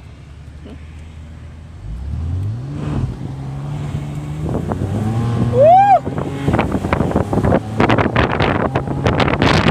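BMW Z4 roadster's engine revving up as the car pulls away hard in sport mode, its pitch rising from about two seconds in and holding. A short high tone rises and falls about six seconds in. Wind noise on the microphone grows as speed builds with the roof open.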